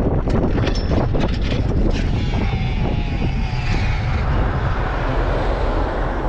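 Wind rushing over the microphone of a moving fixed-gear bicycle, with a rapid rattling clatter for the first couple of seconds as the bike chain comes off. After that, steady wind and road noise.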